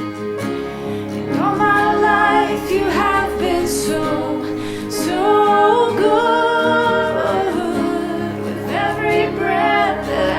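Worship song music: a voice singing over guitar accompaniment.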